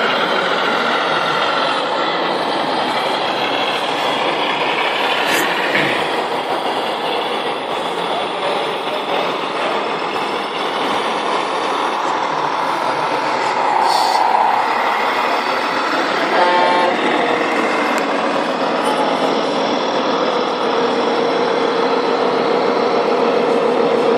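Sound modules in 1:14 scale RC trucks playing truck engine noise through small speakers, with a short horn toot about two-thirds of the way through.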